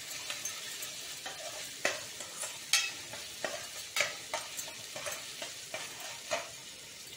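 Sliced onions, green chillies and ginger-garlic paste sizzling in oil in a pan while a spatula stirs them, its strokes knocking and scraping against the pan about twice a second over the steady sizzle.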